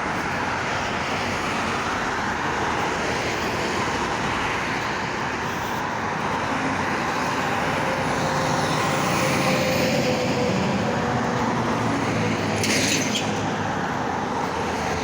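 Roadside traffic noise: a steady rush of passing vehicles, with a heavier engine growing louder through the middle. A short hiss comes near the end.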